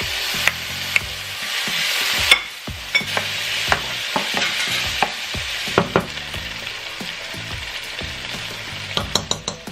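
Onion, garlic, spices and freshly added tomatoes frying in oil in a pot, sizzling steadily while a spoon stirs, knocking against the pot now and then. The sizzle is louder for the first couple of seconds, then settles lower.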